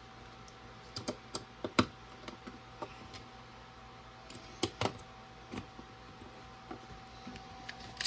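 Irregular light clicks and taps of plastic LEGO bricks being handled, set down and pressed onto each other, over a faint steady hum.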